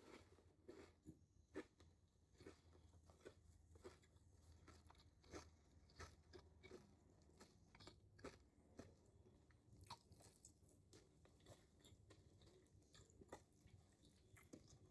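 Faint, close-miked chewing of a hoagie sandwich: soft, irregular crunches and wet mouth clicks, a few a second.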